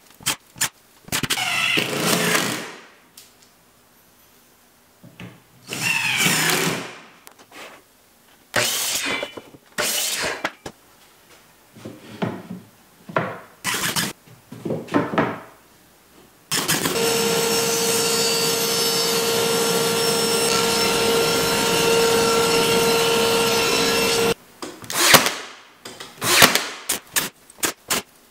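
Cordless drill running into plywood in a series of short whirring bursts, some rising in pitch as they go, with clicks and knocks of handling between them. Past the middle, a power tool runs steadily for about eight seconds before the short bursts resume.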